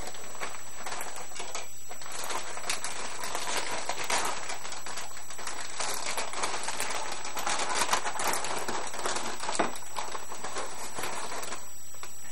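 Plastic chip bag crinkling and rustling in someone's hands, a dense crackle that lets up briefly about two seconds in and stops shortly before the end.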